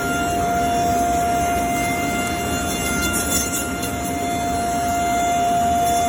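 CNC router spindle milling a pass along a wooden door-jamb head: a steady, high whine over the rush of the bit cutting wood.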